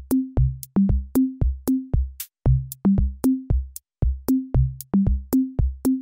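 Background music: an electronic drum-machine beat with a steady click rhythm and short bass notes.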